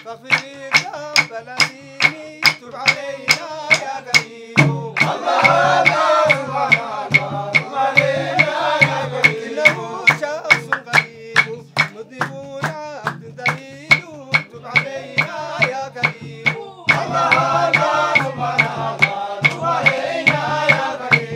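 Sufi dhikr chant: men's voices singing together over steady hand-clapping, about three claps a second. The singing swells about five seconds in and again near the end, while the claps keep the beat.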